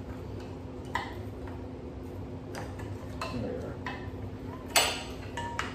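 Scattered light clicks and knocks of rubber hoses and their plastic and metal fittings being worked loose and pulled off the top of a Subaru WRX engine, with one sharper clack near the end, over a steady low hum.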